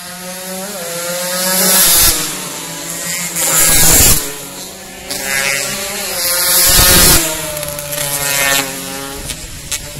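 Two-stroke 150 cc racing motorcycles passing close by one after another, each engine revving high and falling in pitch as it goes by. The loudest passes come about two, four and seven seconds in.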